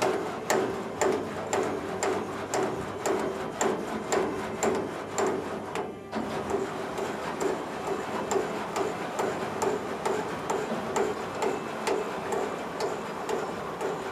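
Piper J-3 Cub's stabilizer trim jack screw being worked, giving an even clicking about twice a second, each click with a short squeak.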